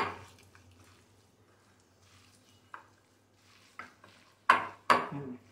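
Dried prawn masala being mixed by hand in a ceramic bowl: a sharp clink of the bowl at the start, a couple of faint taps, then two loud knocks close together near the end. A faint low hum runs underneath.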